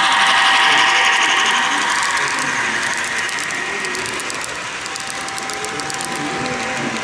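HO scale GP38-2 model locomotive running along the track: a steady whine from its motor and gear mechanism with rapid fine clicking, getting quieter over the first few seconds.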